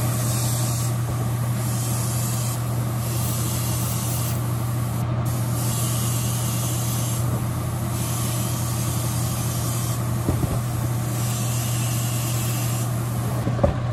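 Airbrush spraying a white base coat onto a lure body in repeated bursts of hiss, each one to two seconds long, over a steady low hum.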